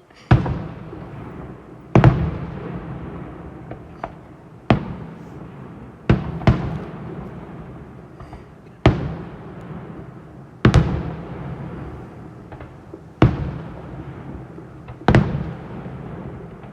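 Fireworks display: about ten aerial shell bursts going off at irregular intervals of one to two seconds, each a sharp bang followed by a long rolling rumble.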